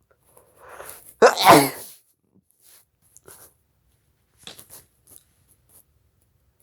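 One loud human sneeze about a second in, preceded by a quick rising in-breath: a sneeze provoked by snorting chhinkni sneezing powder. A few faint short sounds follow.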